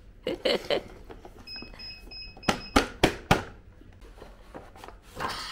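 Toy action-figure packaging being opened: four sharp snaps or knocks of cardboard and plastic in about a second, after a short run of four faint, evenly spaced beeps, with rustling of the packaging near the end.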